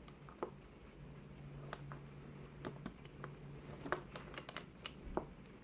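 Small metal clicks and ticks of a 5-pin lock being taken apart by hand: about a dozen light, irregular taps, the sharpest about four seconds in.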